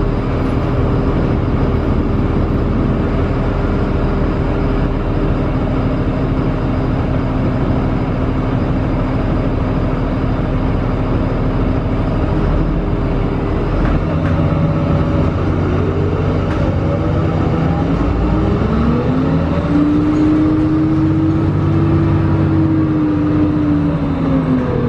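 Interior sound of a 2006 Gillig hybrid bus with a Cummins ISB 5.9L diesel and Allison EP40 hybrid drive, running steadily while stopped, then pulling away about 14 seconds in. As it gets under way a whine rises in pitch, holds, and falls again near the end.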